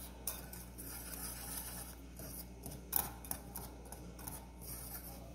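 Wire whisk stirring dry flour mix in a glass bowl: a faint, irregular scratchy swishing, with one sharper click about three seconds in.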